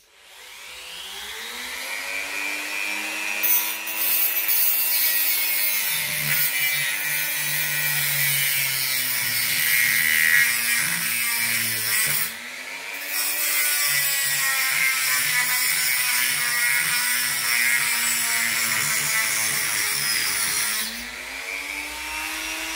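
Parkside PFBS 160 B2 rotary multi-tool spinning up, then its cut-off disc grinding through a screw, the motor's whine sagging in pitch under the load. The cut breaks off briefly about halfway through and stops a couple of seconds before the end, leaving the tool whining freely.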